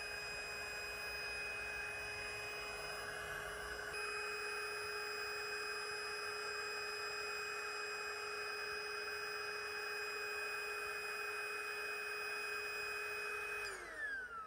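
Handheld electric air pump running steadily while inflating the ring of an inflatable paddling pool: a constant motor whine over a rushing hiss of air. Near the end the whine falls in pitch as the motor winds down.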